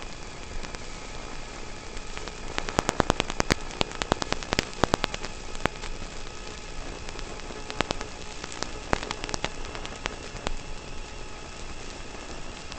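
Radio-controlled cars driving on gravel: a steady hiss, with a dense run of sharp clicks of loose stones from about three to six seconds in, and a few more clicks later.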